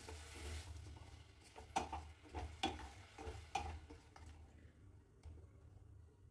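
A spoon stirring lumps of jaggery melting in a little water or milk in a saucepan, making a string of light scrapes and clicks against the pan. After about four seconds the stirring stops and it goes quieter.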